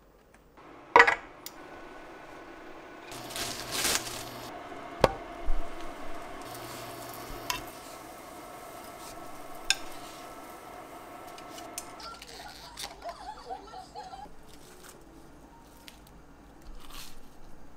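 Bread toasting in a buttered frying pan: a steady sizzle with a faint hum under it, a louder hiss about three to four seconds in, and a few sharp taps of chopsticks against the pan. After about twelve seconds it gives way to light clicks and clinks of plate and cutlery.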